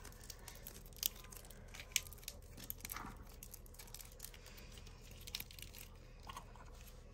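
Soft crackle clay being stretched and squeezed by hand: faint crackling and tearing with scattered small clicks, a couple of them a little louder about one and two seconds in.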